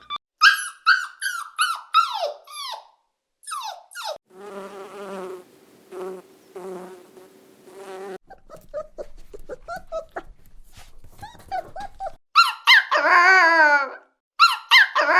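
A sequence of different animal sounds edited one after another: a series of short falling cries like a dog yelping or whining, then a steady buzz for about four seconds, a few short scattered calls, and a horse whinnying loudly near the end.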